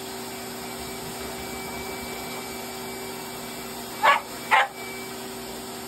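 A puppy gives two short, sharp barks, half a second apart, about four seconds in. Underneath, a pet grooming dryer blows with a steady hum.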